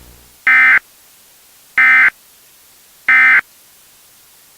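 Emergency Alert System end-of-message (EOM) data signal: three short, identical, loud buzzy digital data bursts about a second and a quarter apart, marking the end of the alert.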